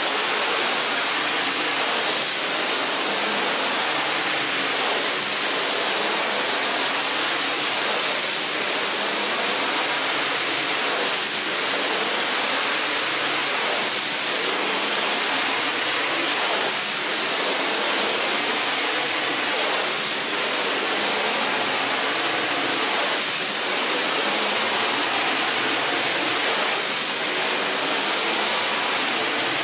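A steady, loud hiss of water spraying onto a carpet during cleaning, with faint swells every couple of seconds.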